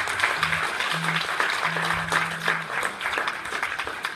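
A church congregation applauding: dense, steady clapping from many hands. A few short, low, held notes sound underneath.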